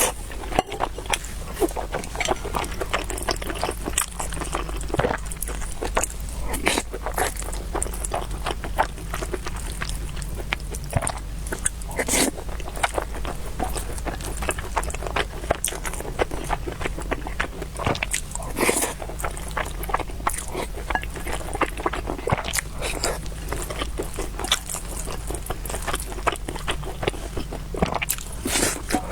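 Close-up eating sounds: chewing and biting with a steady stream of short wet mouth clicks and smacks.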